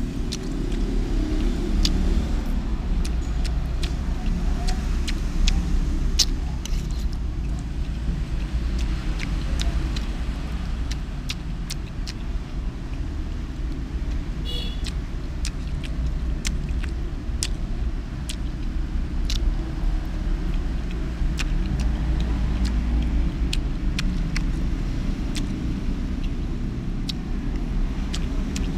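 Steady low rumble of road traffic, with many short sharp clicks and smacks of someone eating rice soup with a metal spoon. A brief high squeak comes about halfway through.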